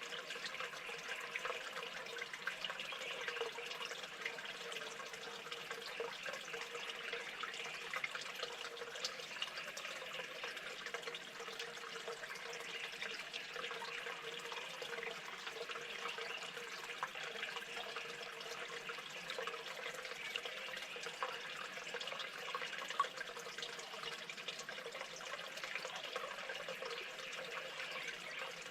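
Steady running or trickling water, an even noise dotted with small drips and splashes.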